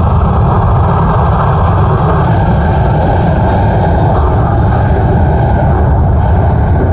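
Jet engines of a Boeing 737 airliner running as it moves along the runway: a loud, steady deep rumble with a hiss above it.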